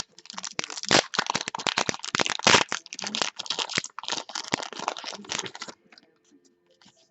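Crinkling and crackling of a trading card pack's wrapper as it is handled and torn open, a dense run of sharp crinkles that stops about six seconds in.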